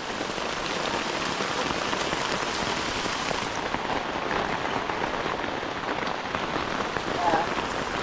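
Steady rain pattering on a plastic shower curtain held overhead, a dense even patter of fine drop taps.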